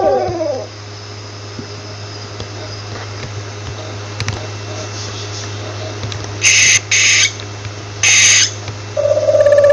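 Owl calls: three short, harsh, hissing screeches, each about half a second long, over a low steady hum. Near the start the tail of a falling call fades out, and near the end a steady held tone begins.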